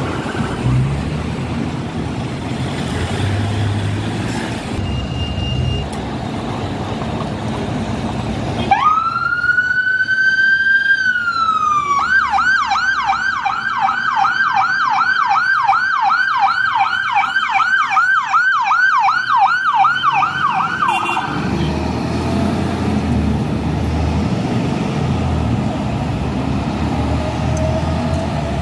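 Fire engine siren: about nine seconds in it starts with a slow rising and falling wail, then switches to a fast yelp of about three cycles a second, and cuts off about two-thirds of the way through. Road traffic and engine noise run underneath, and are all that is heard before and after.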